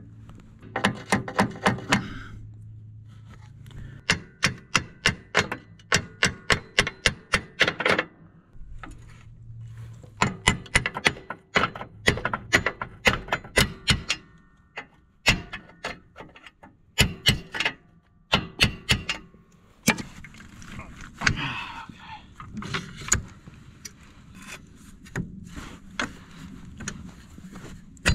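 Hammer driving a tapered steel roll pin into a Western Wide Out plow mount latch: quick runs of sharp metal-on-metal strikes, about three a second, broken by short pauses.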